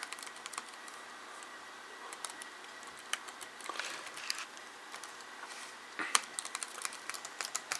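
Keys on a freshly installed Acer Aspire 5742G laptop keyboard being pressed one at a time to test them. The clicks are scattered at first and come quicker near the end.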